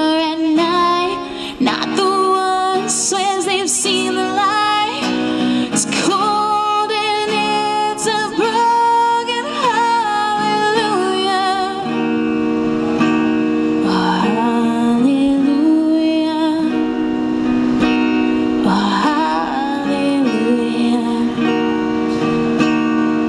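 A woman singing, with vibrato, to her own acoustic guitar accompaniment. In the second half the voice comes in only in short phrases while the guitar chords carry on.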